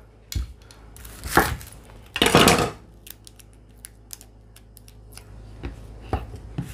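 Dry papery skin of a Spanish onion being peeled off by hand: two louder rasps about one and two seconds in, then light crackling ticks.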